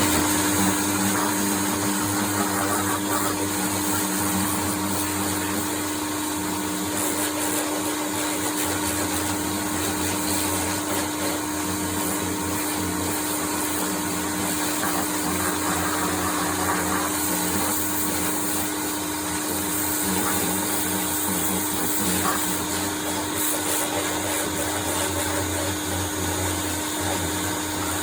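Pressure washer with a turbo nozzle running steadily: the pump motor hums one steady tone under the hiss of the water spray.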